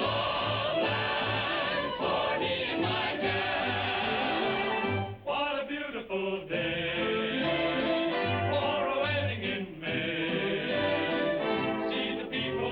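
Old-time song: voices singing with vibrato over a band, with a steady pulsing bass beat.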